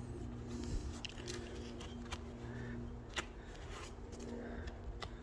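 A few light clicks and scrapes of parts being handled, over a steady low hum.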